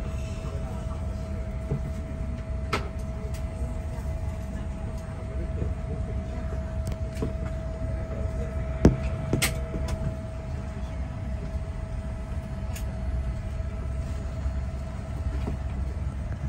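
Steady low rumble of cabin noise inside a Boeing 787-9 airliner on the ground, with a steady hum tone over it. A few sharp clicks and knocks break through, the loudest about nine seconds in.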